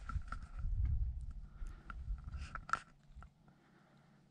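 Wind buffeting an action-camera microphone with a low rumble, with scattered light clicks and scrapes of the camera and gear moving. The sound dies away about three seconds in.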